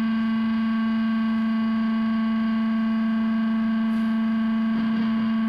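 Electronic synthesizer drone: one note held perfectly steady at a single pitch, with no change in level or tone.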